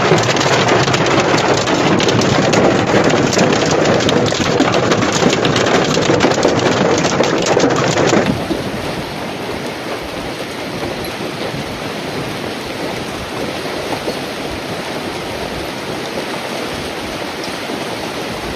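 Heavy rain pelting down hard, dense with fine patters and clicks. About eight seconds in it cuts suddenly to a quieter, steady downpour.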